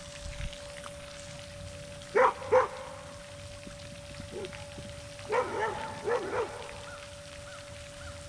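A dog barking: two short barks, then about four more in quick succession a few seconds later.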